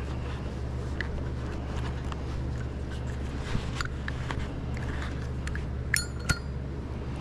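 Hands handling a nylon starter pull rope and small parts on a metal workbench, with faint clicks over a steady low hum. About six seconds in come two sharp metallic clinks, a third of a second apart.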